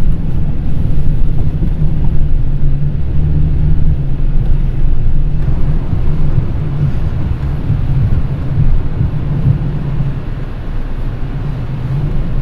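Mitsubishi Triton pickup driven off-road, heard from inside the cab: the engine runs steadily with low pitch shifts, under a rumble of tyres and body.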